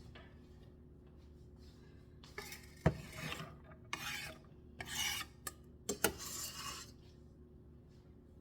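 A kitchen utensil scraping and pushing chopped onions and carrots in a pan: about five rasping strokes, each under a second, with two sharp knocks among them, after a quiet first two seconds.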